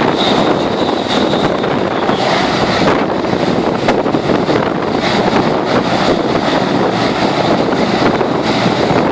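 Hovercraft running loud and steady, its engine and propeller noise mixed with wind buffeting the microphone, and a faint high whine coming and going.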